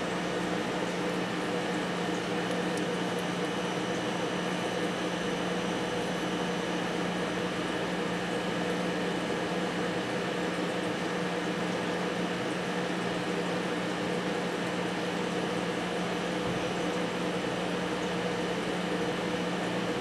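Steady mechanical hum of a running appliance, like an air conditioner or fan, holding a few constant tones with no change throughout.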